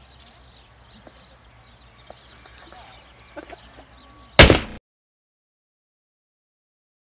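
Faint outdoor background with a low hum and a few small clicks, then about four and a half seconds in a single very loud slam-like hit lasting under half a second, after which the sound cuts out completely.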